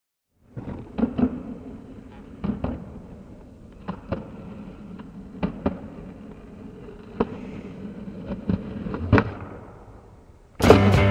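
Skateboard wheels rolling on pavement, with sharp clacks, several in quick pairs, as the wheels cross seams or cracks. Loud music starts near the end.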